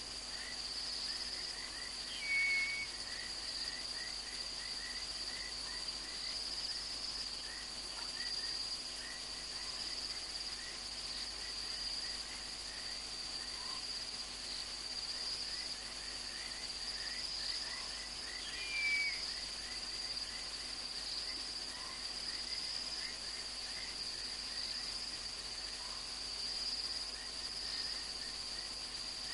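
Chorus of night insects: a steady high-pitched trill, with a quicker chirping layer beneath it. Twice, about two seconds in and again near nineteen seconds, a short, louder call slides down in pitch and then holds briefly; these are the loudest sounds.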